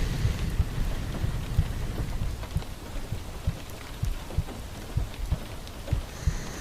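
Rain ambience: a steady hiss of rain with irregular low knocks, like drops hitting a surface.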